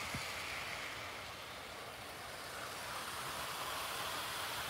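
OO gauge model InterCity 125 train running along garden track: a steady whirr and rumble of motor and wheels on rail, growing a little louder as it comes past close by.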